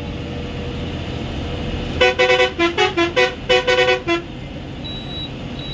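Bus air horn sounding a quick run of about ten short blasts in changing pitches about two seconds in, over the steady drone of the bus engine and road noise heard from the driver's cabin.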